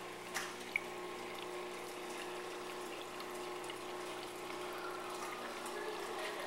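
Saltwater aquarium's pump and filtration running: a steady hum with water trickling, and two small clicks near the start.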